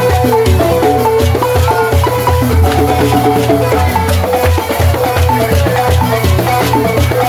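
Senufo balafon music: quick runs of short struck wooden notes in a repeating melody over a steady low pulse.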